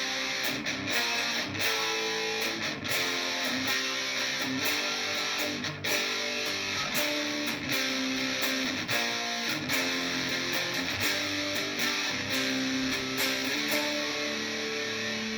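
Epiphone SG Modern Figured electric guitar on its bridge pickup, played through a distorted amp tone: a run of picked notes and strummed chords, ending on a held chord.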